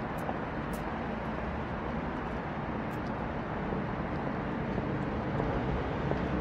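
Steady rumble of distant city road traffic: an even wash of engine and tyre noise with no single vehicle standing out.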